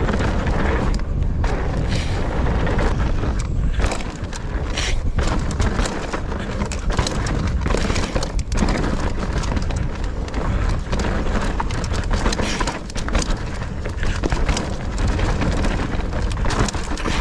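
Nukeproof Mega 290 enduro mountain bike riding fast down a rooty dirt trail: wind buffeting the action camera's microphone over tyre noise on dirt, with frequent knocks and rattles from the bike over bumps.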